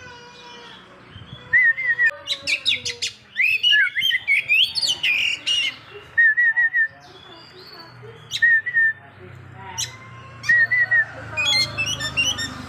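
Oriental magpie-robin (kacer poci) singing. Loud runs of varied whistled, sweeping notes alternate with a short phrase of three or four quick notes that repeats every couple of seconds.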